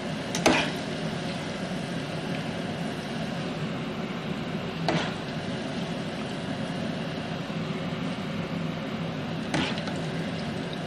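Cubes of eggplant sizzling steadily in hot frying oil as they are scooped out, browned, with a metal ladle that knocks against the pan three times: about half a second in, around five seconds in and near the end.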